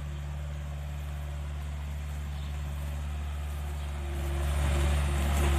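Bobcat S175 skid-steer loader's diesel engine running with a steady low hum as the loader drives down a tow truck's ramp, growing louder about four seconds in.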